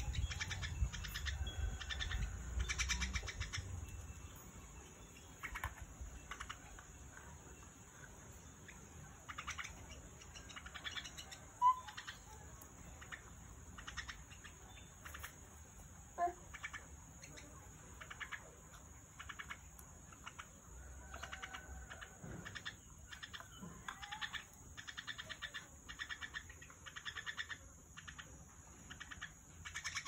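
Mynas chirping in short, repeated calls over a steady high-pitched hiss.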